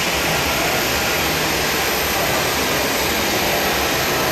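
Jet engines of a Boeing 737-800 running with a steady, loud rushing noise.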